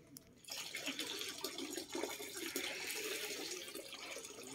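A bottle of syrup poured in a thin stream into a plastic bucket of mixed liquid, splashing steadily. The pouring starts about half a second in.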